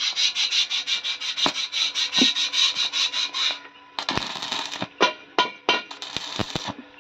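Handheld angle grinder's disc grinding against a steel strip in a rapid pulsing rasp that stops about three and a half seconds in, followed by several short touches of the disc to the metal.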